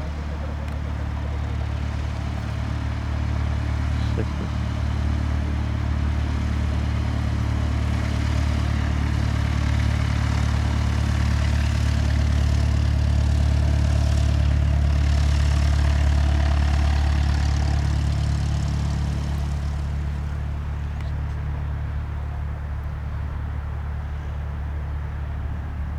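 Cessna 172's single piston engine and propeller running at takeoff power, a steady low drone that grows louder to a peak past the middle and then fades away.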